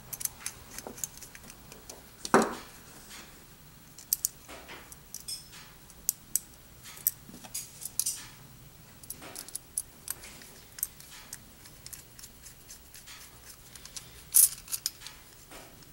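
Small metallic clicks and clinks as a titanium framelock folding knife is screwed together by hand with a precision screwdriver. Two sharper knocks stand out, one about two and a half seconds in and one near the end.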